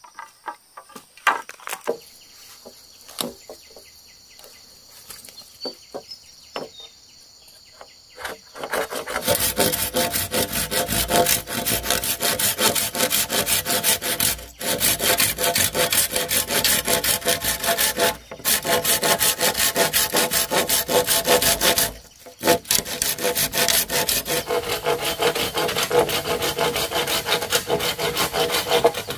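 Hand saw cutting through a green bamboo pole in fast, even strokes that start about nine seconds in and stop briefly three times. Before that there are only scattered light taps and rustles.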